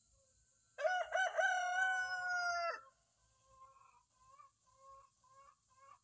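Red rooster crowing once, about two seconds long, starting about a second in: a few short broken notes, then one long held note that sinks slightly at the end. Soft, short clucking notes follow.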